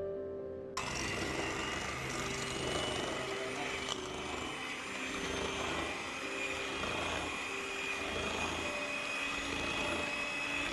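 Electric hand mixer switched on about a second in and running steadily with a high motor whine, its wire beaters whisking eggs and sugar in a stainless steel bowl.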